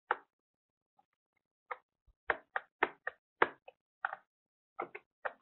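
About a dozen short, sharp clicks from a computer mouse and keyboard, coming at an uneven pace with a quick cluster in the middle, while a 3D model is edited.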